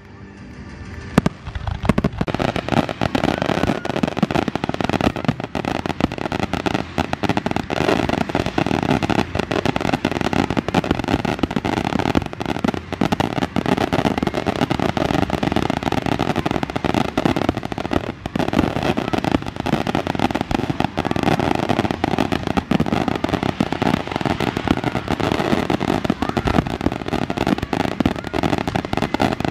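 Fireworks finale barrage: a dense, continuous rapid-fire crackle of shells launching and bursting. It turns louder about two seconds in.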